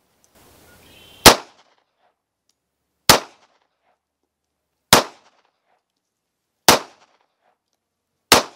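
Five single shots from a Cimarron 1911 .45 ACP pistol in Parkerized finish, fired at an even slow-fire pace about one every 1.8 seconds, each a sharp crack with a short ringing tail.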